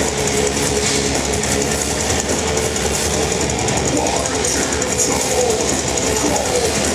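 Metal band playing live: heavy distorted electric guitars and drums in a loud, dense, unbroken wall of sound, heard from inside the crowd.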